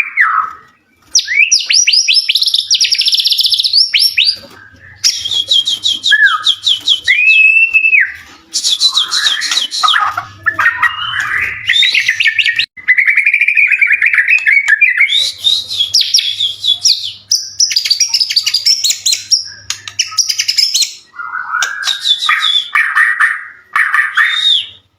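White-rumped shama (murai batu) singing loudly in a fast, varied run of phrases: rapid trills of repeated notes, clear whistles and down-slurred notes, broken by short pauses.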